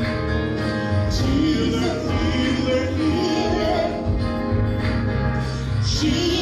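Gospel music: voices singing with instrumental accompaniment and a steady bass underneath.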